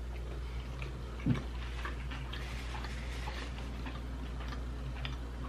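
A person chewing a mouthful of spicy sushi roll close to the microphone: many small wet mouth clicks and smacks, with a short low sound about a second in.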